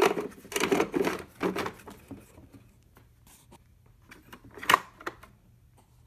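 Plastic circular slide tray being fitted onto a Vivitar 5000 AF slide projector: a clatter of plastic rattles and knocks over the first two seconds, then lighter handling and one sharp click about three-quarters of the way through.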